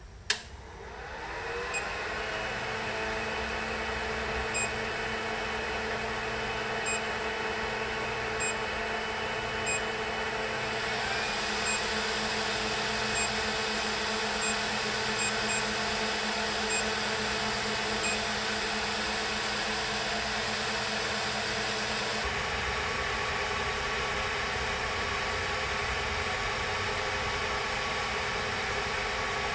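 A Creality 3D printer switched on with a click, its cooling fans spinning up over a couple of seconds and then running with a steady whirring hum. Short high beeps sound now and then as its touchscreen is pressed.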